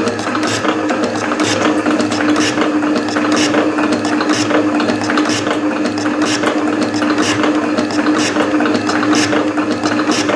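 Metal shaper running a cut in a metal block: a steady motor hum with a regular, repeating clatter from the ram's strokes and mechanism.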